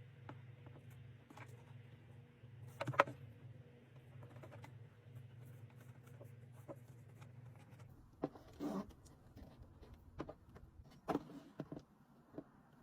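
Faint handling noises: scattered light clicks and taps, a louder knock about three seconds in and a short rustle near nine seconds, over a low steady hum that stops about eight seconds in.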